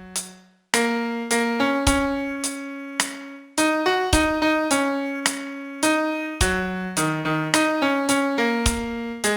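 Piano playing a song melody one note at a time, each note struck and left to ring. There is a short silence just after the start, then an even run of notes that rise and fall in pitch.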